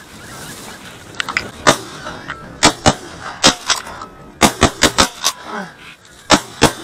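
Rapid volley of shotgun shots from several hunters firing together at geese overhead: about a dozen sharp reports in quick groups over some five seconds.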